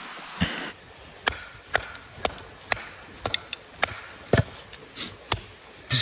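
Hatchet blade chopping into small pieces of wood, splitting them for fire kindling: a run of sharp, short chops at roughly two a second, starting about a second in.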